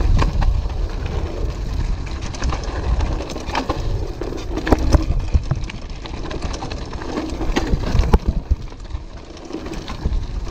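Orbea Alma hardtail mountain bike riding over a rocky trail: a constant low rumble of tyres and wind on the microphone, with repeated knocks and rattles from the bike over rocks, the sharpest about five and eight seconds in.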